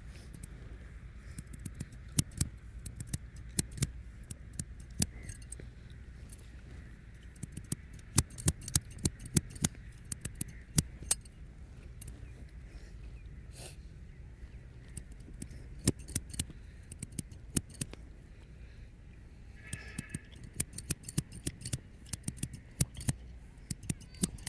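Scissors snipping in quick runs of sharp clicks, pausing briefly between runs, over a faint steady hum; a short squeak about twenty seconds in.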